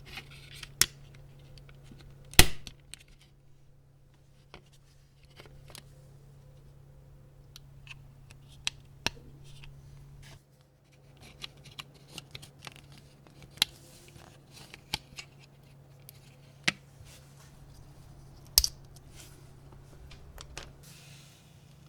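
Scattered sharp clicks and taps of small parts and tools being handled during work on a diecast model car, the two loudest about two seconds in and near the end, over a steady low hum.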